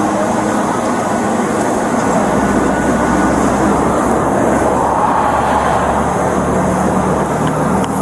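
Steady rush of road traffic passing close by, swelling about four to six seconds in as a vehicle goes past.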